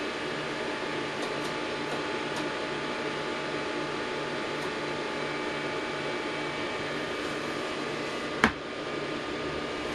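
Steady whir of cooling fans on bench RF power amplifiers and test gear, with a low hum that pulses about twice a second. One sharp click about eight and a half seconds in.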